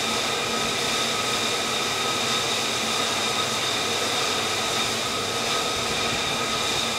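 Jet engine running steadily at idle: an even rush with a constant high whine, no change in pitch or level.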